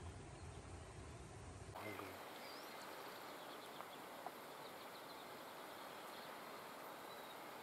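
Faint outdoor bush ambience. A low rumble gives way abruptly, about two seconds in, to a quiet even hiss with a few faint bird chirps and insect-like ticks.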